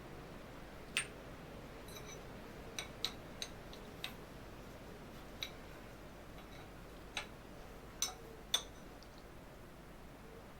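About ten light clicks and taps, irregularly spaced, of small metal parts and hand tools being handled on a workbench, some with a faint metallic ring.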